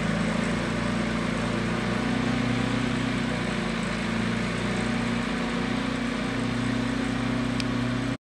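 Caterpillar D6 crawler dozer's diesel engine running steadily, a constant drone that cuts off abruptly near the end.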